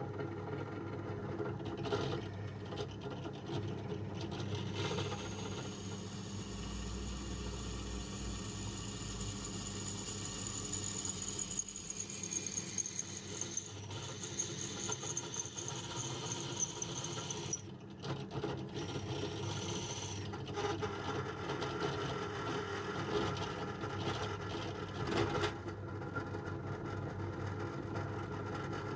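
Bench drill press running, a freshly sharpened twist drill boring into a steel plate. A high thin whine of the cut comes in about five seconds in and stops just past halfway.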